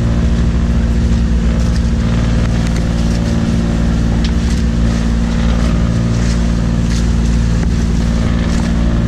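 Engine of a motorised outrigger boat (bangka) running steadily under way, over a steady hiss of water and wind.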